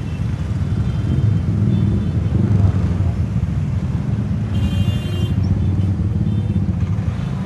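Motor traffic in a jam: a steady low engine rumble from cars and motorcycles, with a brief high-pitched burst about five seconds in.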